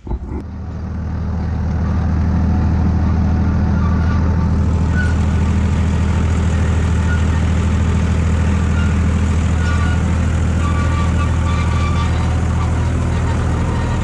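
IHC 633 tractor's four-cylinder diesel engine running steadily under load while pulling a spring-tine harrow over the seedbed.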